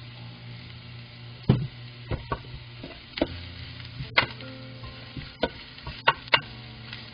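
Wooden spatula knocking and scraping against a square nonstick frying pan while julienned carrots are stir-fried: about eight sharp knocks at uneven intervals, loudest about a second and a half in and around four and six seconds in.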